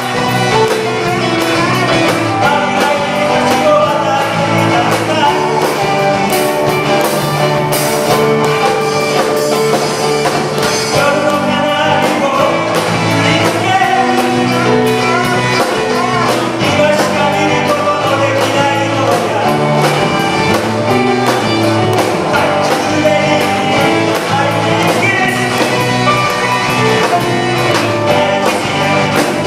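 A live rock band playing: drum kit, electric guitar, bass guitar and keyboard, with a violin carrying the held melody notes over them.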